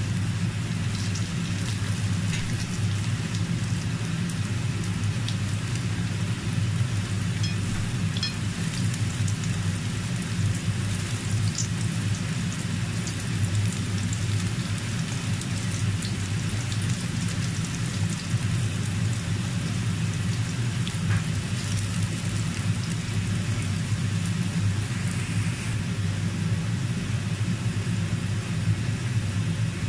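Pumpkin slices sizzling in hot oil in a frying pan, a steady even sizzle with scattered small crackles, over a steady low hum.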